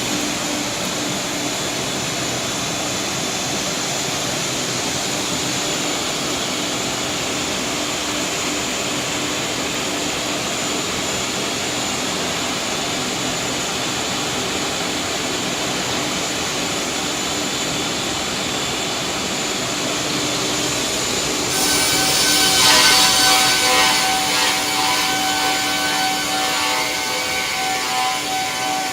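Twin-shaft multi-rip circular saw machine (MDS 220) ripping a timber beam into boards, with a steady loud sawing noise. About three quarters of the way through, the sound grows louder and brighter, and steady ringing tones from the blades come in.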